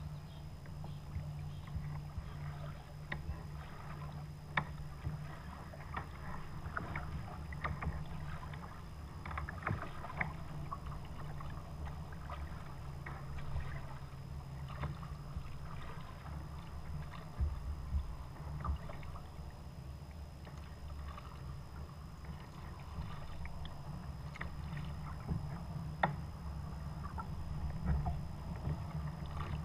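Paddling a Perception Pescador 12 kayak on calm river water: paddle blades dipping and dripping, with irregular small splashes and ticks over a steady low rumble.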